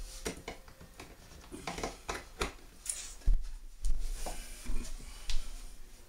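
Handling noise: a string of irregular clicks and knocks with rustling between them, the loudest a little past three seconds in and again near four and five seconds.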